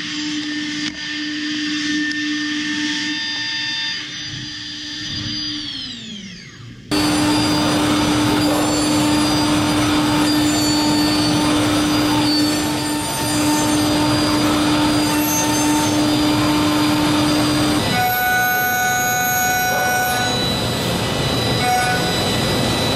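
Mazak HCR-5000 machining center milling a metal block: the spindle turns a 50 mm face mill at 18,000 rpm with a steady high whine over cutting noise. Its pitch falls away about six seconds in, then loud cutting starts again abruptly. About eighteen seconds in the sound changes to a slower 20 mm endmill cut at 1,500 rpm.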